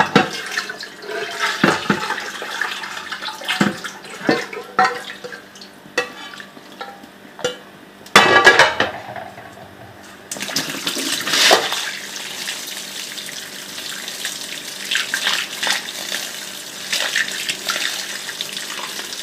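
Cold water running over freshly boiled, drained rice to rinse it, a steady splashing hiss from about ten seconds in. Before it come knocks and clatter of the cooking pot.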